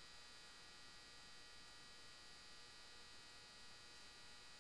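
Near silence: room tone with a faint steady electrical hum and a thin high whine.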